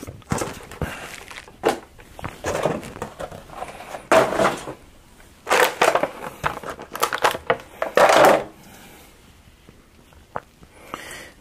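Clear plastic blister packaging crinkling and crackling in irregular bursts as an action figure and its accessories are handled out of the tray. The bursts stop about eight seconds in.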